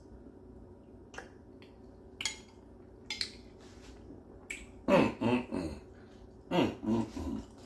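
A man tasting a spoonful of soup: a scatter of lip smacks and mouth clicks while he chews. Then two short runs of wordless vocal sounds of appreciation, near the middle and towards the end, which are the loudest part.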